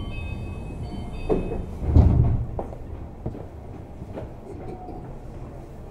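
Inside a Tama Toshi Monorail 1000-series car: a few short high tones in the first second and a half, two heavy thuds about a second and a half and two seconds in, then the car's low, steady running noise.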